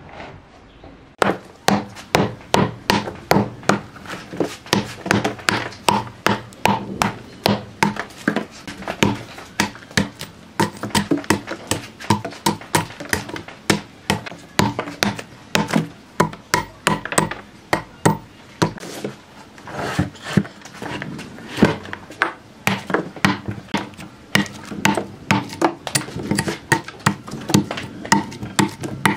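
A heavy blade chopping and prying at a rotting log, knocking off the loose bark: a steady run of sharp woody strikes, about two a second.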